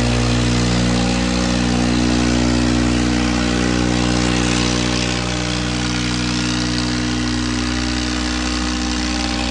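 Diesel engines of two Swaraj 855 tractors running hard as they pull against each other in a tug-of-war: a steady, loud engine note that eases slightly about five seconds in.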